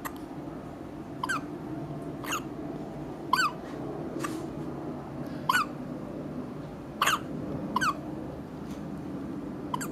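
Newborn babies hiccuping: about seven short, high hics at irregular intervals of one to two seconds, each dropping quickly in pitch.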